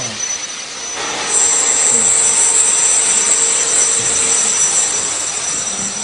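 Cordless handheld vacuum's fan motor running at full speed: a steady rush of air with a high whine, which grows louder about a second in.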